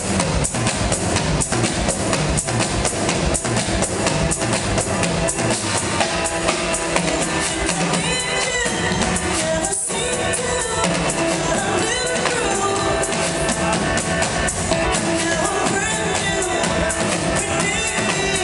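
Live pop performance: a drum kit playing a fast, steady beat over a DJ's backing track, with a woman singing lead from about six seconds in. The music breaks for a split second about halfway through.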